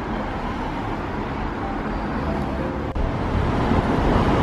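City street traffic noise: a steady road rumble of passing cars, a little louder after a sudden cut about three seconds in.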